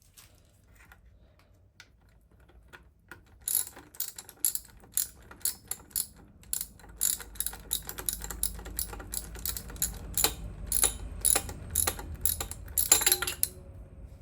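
Socket ratchet clicking stroke after stroke as a bolt of the oil pickup tube is undone, beginning a few seconds in at about two to three clicks a second and ending in a quick run of clicks near the end.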